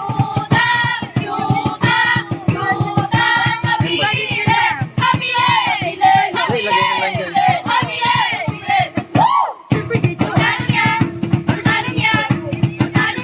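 Recorded song with singing over a fast, steady beat, played for a dance. The beat drops out briefly about nine and a half seconds in.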